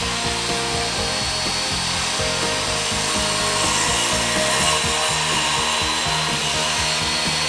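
Handheld electric circular saw running and cutting through plywood, a steady blade-and-motor noise with a high whine held throughout.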